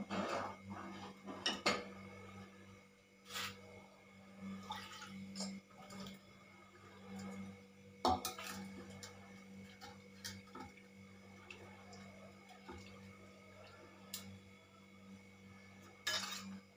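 A metal ladle scraping and clinking against an aluminium pot as dal is stirred, followed by a few separate sharp clinks of metal utensils, the loudest about eight seconds in. A steady low hum lies underneath.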